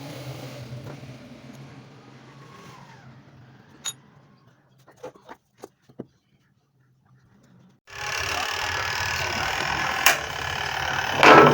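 Rewound washing machine motor humming as it runs down and fades over the first few seconds, followed by a few sharp clicks and a short silence. About eight seconds in, a much louder running machine sound starts suddenly, with a loud knock near the end.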